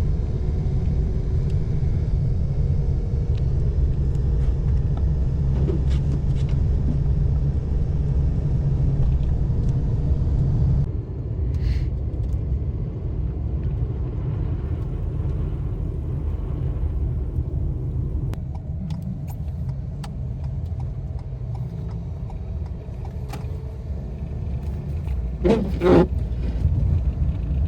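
Ford Maverick pickup driving, probably heard from inside the cab: a steady low engine and road rumble that eases about eleven seconds in. A brief louder sound comes near the end.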